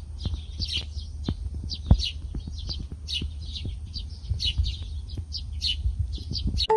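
Small birds singing, with short high chirps repeating every fraction of a second, over a low rumble and scattered soft knocks on the microphone.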